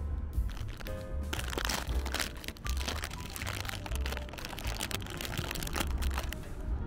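Thin plastic wrapper crinkling and rustling as it is pulled open by hand, over background music with a steady bass beat.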